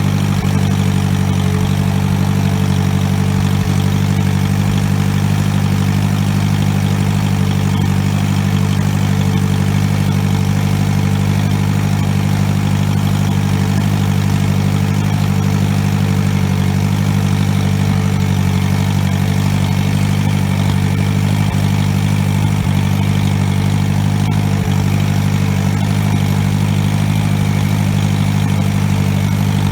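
1952 Massey Harris Pony tractor's small engine running at a steady speed, an even low drone with no change in pitch or level.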